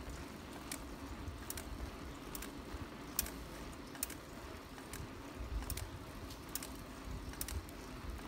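Bicycle rolling along a wet paved path, with wind rumbling on the microphone and a sharp tick repeating a little more than once a second.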